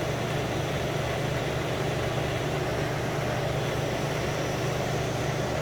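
Air conditioner running: a steady low hum with an even rush of fan air.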